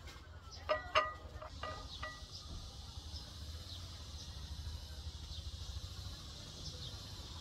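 Four sharp clinks of dishes or utensils within the first couple of seconds, each with a short ringing note. After that only faint high chirps and a low steady rumble remain.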